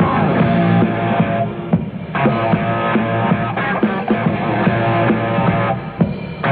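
Rock band playing: electric guitar, bass guitar and drum kit together, dropping back briefly twice.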